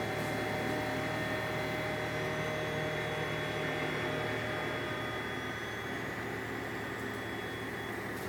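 Mobile crane's engine running steadily while it holds a lifted modular building section, with a steady high whine over the rumble that stops near the end.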